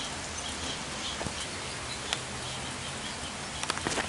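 Steady rain falling on trees and ground, an even hiss, with faint high chirps repeating every fraction of a second behind it. A few sharp clicks near the end.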